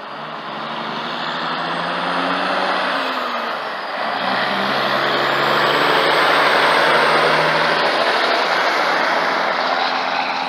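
Heavy diesel trucks driving past close by: engines pulling, their pitch stepping up and down, over loud tyre and road noise that builds to its loudest about six to seven seconds in.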